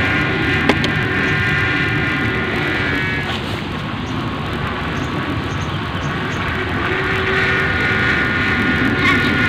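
Wind buffeting the microphone, with a steady high-pitched droning hum that fades out about three seconds in and comes back near the end, and a single sharp click just under a second in.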